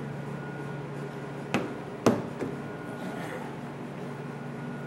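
Rubber windscreen seal being handled and pressed onto the car body's window flange: two sharp knocks about a second and a half and two seconds in, then a lighter one, over a steady background hum.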